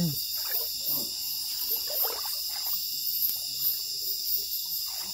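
Night insects chorusing: a steady, high shrill with a pulsing layer above it. Faint voices in the background.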